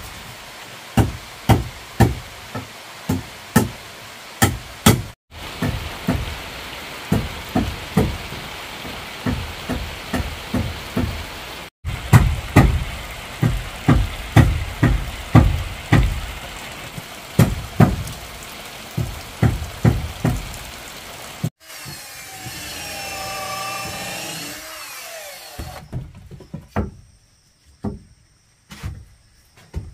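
Repeated hand-tool blows on wood, about two a second, in several stretches that cut off abruptly. Near the end comes a few seconds of a whining tone that wavers in pitch, followed by a few scattered knocks.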